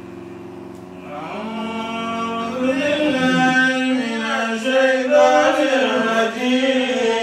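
A man chanting an Arabic devotional praise poem in long, wavering, ornamented notes. The voice swells in about a second in, after a steady held tone.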